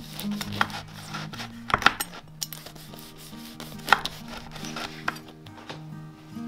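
Chef's knife cutting through a crusty baguette on a wooden board: a series of crunching cracks from the crust, loudest near two seconds in and near four seconds in. Soft background music with held notes plays underneath.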